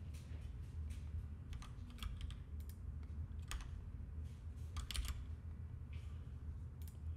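Computer keyboard keys tapped at an irregular pace, about a dozen separate clicks, over a steady low hum.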